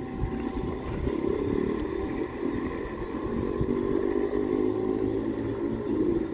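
Engine running with a steady low rumble.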